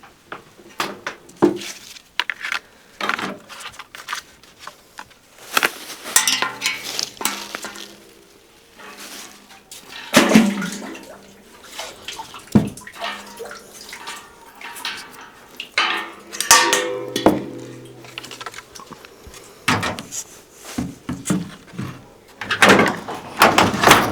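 Dishes and cookware clinking and knocking in an irregular run of sharp clatters, as kitchen work goes on.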